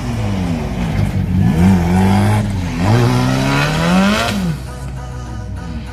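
Drift car's engine revving hard through a slide, its pitch surging up and falling back several times, with tyre squeal over it. The revs drop away about four seconds in.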